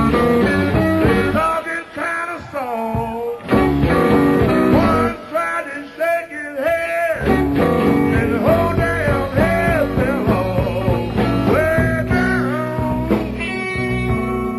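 Electric blues band playing live, a lead guitar bending sustained notes over bass and drums. The bass and drums break off briefly near the middle while the lead line carries on.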